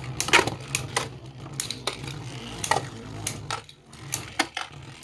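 Two spinning Beyblade tops, one of them 3D-printed, clashing in a plastic stadium with irregular sharp clacks over a low whirr of spinning.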